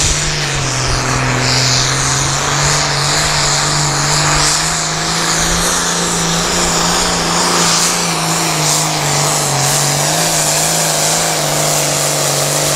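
Turbocharged International Harvester farm tractor's diesel engine running flat out under full load while pulling a weight-transfer sled. The engine note is loud and steady, with only small shifts in pitch.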